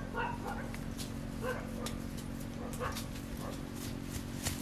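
Short, high yelping calls from an animal, heard about six times at irregular intervals over a steady low hum.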